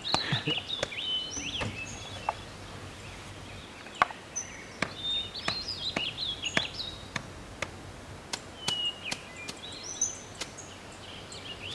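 Birds chirping in short, high notes that bend in pitch, scattered throughout, over a steady outdoor background hiss, with occasional sharp clicks.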